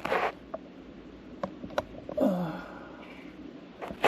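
A man's breaths and sniffs close to the microphone, a few small clicks, and a short falling vocal grunt a little over two seconds in.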